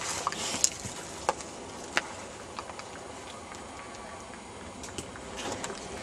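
Leaves and twigs rustling and brushing against the camera as it is pushed through undergrowth, with a few sharp snaps and cracks, the loudest about two seconds in.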